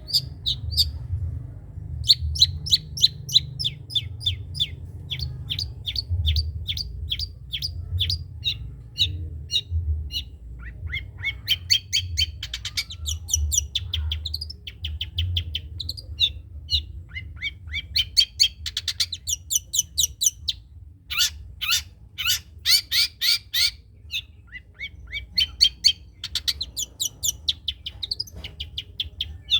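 Long-tailed shrike (cendet) singing in fast runs of short, high chirps, several a second, in phrases with brief pauses between them, over a steady low hum.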